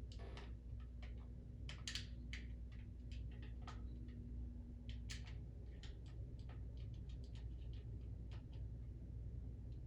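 Faint, scattered clicks and taps of a smoke alarm and its battery being handled for a battery test, over a low steady hum.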